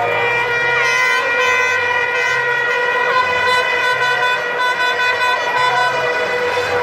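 A horn held on one steady, unbroken note, over crowd noise with short shouts and whistles.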